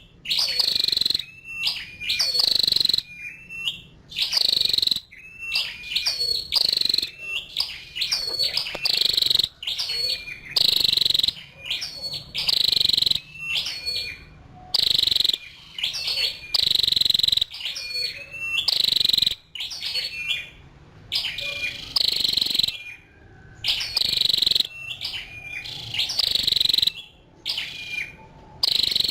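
Female flowerpecker ('chim sâu đầu đỏ') giving loud, sharp, high chirping calls in quick repeated series, with short pauses between runs.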